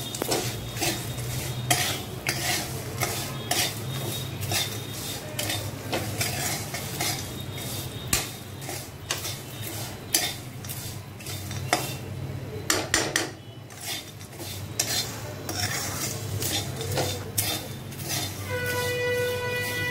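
A flat metal spatula scrapes and taps against a metal kadhai as peanuts, dried coconut slices, curry leaves and nuts are stirred and dry-roasted, with quick strokes throughout. Near the end a steady pitched tone comes in behind the stirring.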